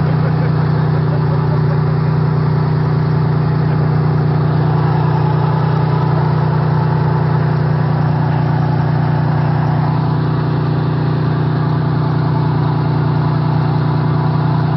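Off-road 4x4's engine running steadily at an unchanging speed, a loud constant drone with no revving.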